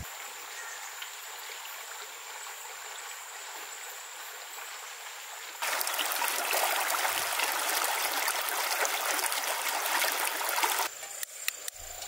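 Shallow stream running over rocks. It is faint at first, much louder from about halfway through, and cuts off abruptly near the end. A few sharp clicks follow just before the end.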